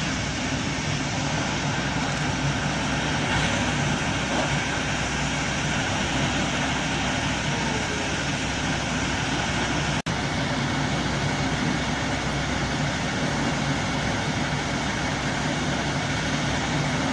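Steady running noise of a train heard from inside its rear carriage while it travels along the line, with a momentary cut-out about ten seconds in.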